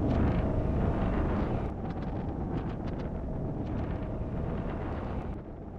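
Strong sandstorm wind buffeting the microphone: a heavy, steady low rumble with scattered faint clicks, easing slightly about two seconds in.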